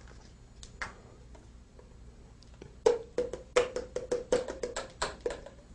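Hard plastic baby-bottle formula dispenser being handled against the bottle: a couple of clicks, then about halfway in a quick run of hollow plastic knocks, about five a second, each with a short ringing note, as the dispenser is tapped to empty the powder.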